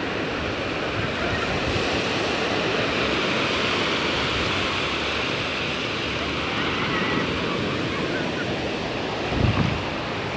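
Ocean surf breaking and washing up the shore as a steady rushing hiss that swells and eases again, with a short low rumble of wind buffeting the microphone near the end.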